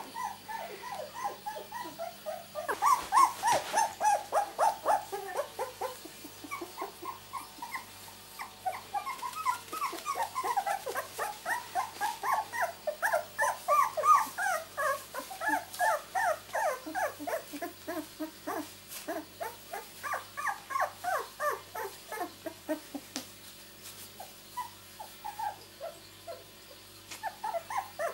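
Two-week-old miniature labradoodle puppies crying, a rapid stream of short, high squeaks, several a second and often overlapping. The calls thin out a few seconds before the end, then pick up again.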